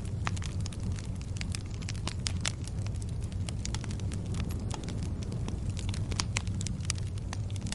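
Fire crackling: a steady low rumble of burning with many sharp, irregular pops and snaps from the burning fuel.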